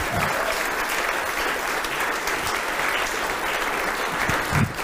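Seated audience applauding, a steady spatter of many hands clapping.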